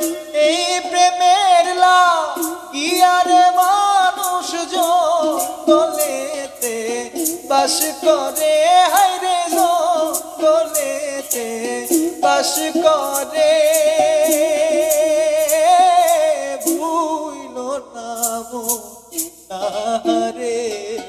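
A man singing a Bengali Baul folk song in long, wavering, ornamented lines. A sharp tapped beat repeats underneath.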